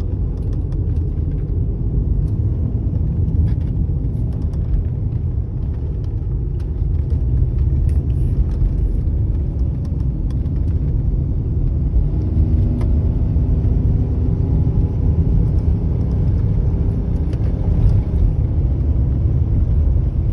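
BMW M54B30 3.0-litre straight-six in an X5 E53 running under load as a steady low rumble, its note rising slightly about twelve seconds in. The owner reports a chu-chu-chu noise with slight power loss when the warm engine is under load.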